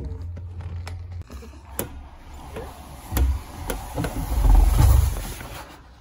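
A person sliding down a tube slide: clothes and shoes rubbing and bumping along the slide in a rumbling scrape with a few sharp knocks. It is loudest about four and a half seconds in and stops just before the end as the rider reaches the bottom.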